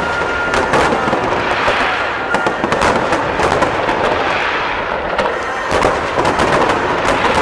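A fireworks display: rapid, overlapping bangs with continuous crackling, going on without a break.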